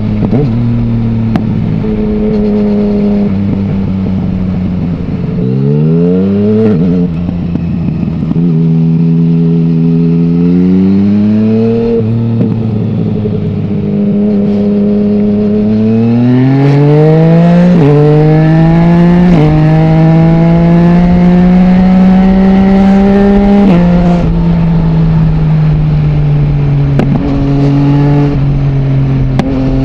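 Yamaha MT-09's three-cylinder engine through an Akrapovic full-system exhaust with no dB killer, heard while riding. The revs rise and fall, with a quick rev about six seconds in; from about twelve to twenty seconds it pulls up through the gears with several sudden shifts, holds steady, then drops off the throttle shortly before the end.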